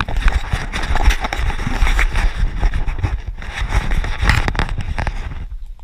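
Loud crackling, rubbing and knocking from a chest-mounted GoPro being jostled on its harness as the runner moves off, with dull low thumps. The noise drops away sharply near the end.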